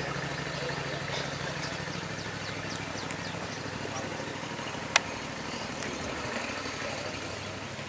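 A steady low engine hum like an idling motor, with one sharp click about five seconds in.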